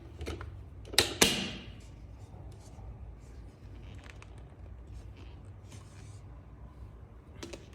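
Two sharp plastic clicks about a second in as the dust cup of a bagless vacuum cleaner is handled at its release button and lid, followed by faint rustling and a few small clicks of plastic being handled.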